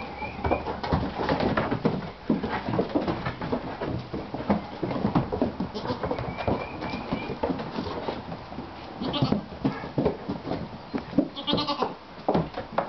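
Goat kids' small hooves clattering and tapping on wooden barn floorboards as they skip and hop about, a dense run of quick knocks, with goats bleating now and then.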